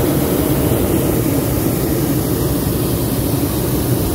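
A hot air balloon's propane burner firing, a loud steady rushing noise that has just cut in.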